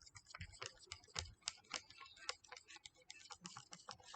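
A mixing tool stirring clear glue and water in a container, making faint, irregular clicks and taps against the container's sides.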